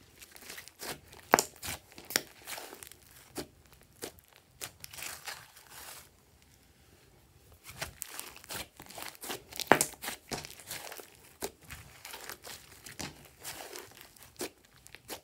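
Hands kneading, squeezing and stretching a large mass of slime: a sticky crackling with sharp pops. It comes in two busy stretches with a short lull in between, and the loudest pops fall about a second in and near the middle of the second stretch.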